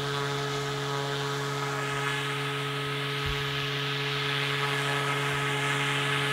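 Electric motor and three-bladed rotor of a SAB Goblin 500 Sport RC helicopter humming at a steady pitch, the rotor still at full head speed with the helicopter on the grass.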